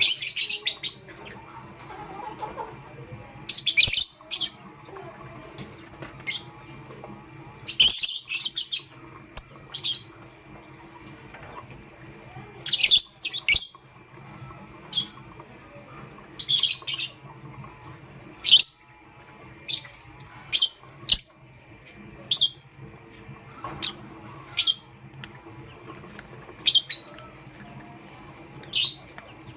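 Lovebirds chirping: short, shrill calls every second or two, some coming in quick clusters.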